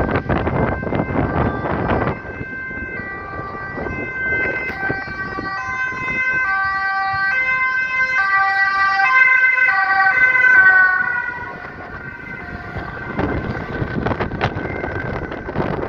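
Ambulance two-tone siren, stepping back and forth between high and low notes, growing louder as it approaches and dying away after about eleven seconds. A rushing noise of wind and traffic on the microphone fills the start and the end.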